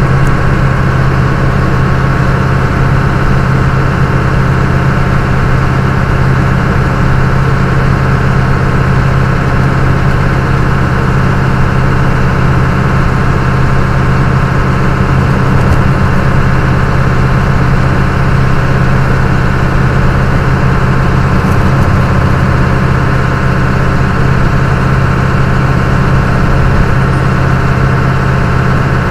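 An old truck's engine and road noise heard inside the cab while it cruises steadily at about 90 km/h. It is a constant, loud low hum that does not change, picked up by the dash cam's built-in microphone.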